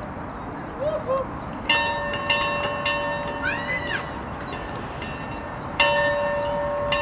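A bell struck several times, each stroke ringing on and slowly fading. The strokes come about two seconds in and again near six seconds.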